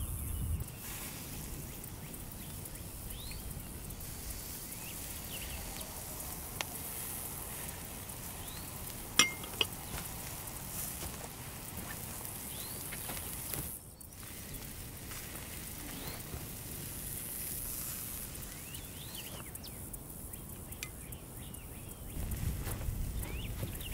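Faint, steady sizzling of shrimp and scallop kebabs searing over hot charcoal, with two sharp clinks about nine seconds in and a few faint high chirps.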